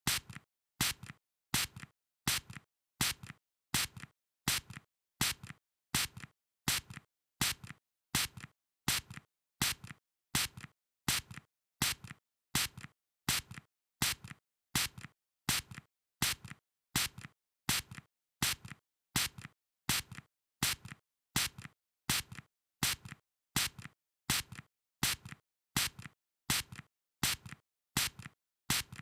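A spray nozzle giving short, sharp bursts of hiss, repeated evenly over and over, with a quick fade after each burst.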